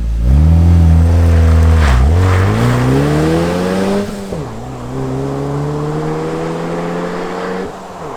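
Ford Bronco Badlands' turbocharged four-cylinder engine accelerating hard through the gears with an XForce Varex valved catback exhaust: the engine note climbs, drops at gear shifts about two and four seconds in, climbs again, then falls away as the throttle is lifted near the end.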